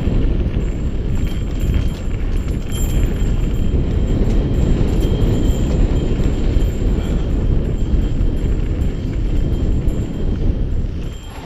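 Mountain bike riding fast down a dirt trail: a dense low rumble of wind on the microphone and tyres on dirt, with small knocks and rattles from the bike over gravel. The rumble eases near the end.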